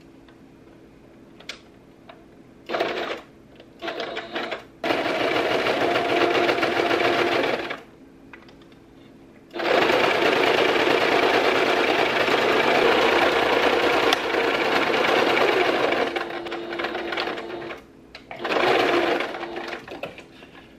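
Electric domestic sewing machine stitching in bursts: two short runs, a few seconds of steady stitching, a pause, then a long run of about six seconds that breaks into shorter runs near the end.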